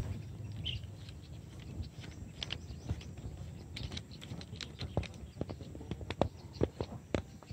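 Handling noise of a handheld camera: fingers tapping and rubbing on the body, heard as irregular clicks and knocks over a low steady rumble.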